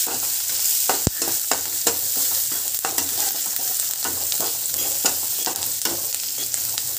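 Sliced onions sizzling in oil in a kadai as they are sautéed and stirred with a steel spatula. The spatula scrapes and knocks against the pan at irregular intervals, with one sharp knock about a second in.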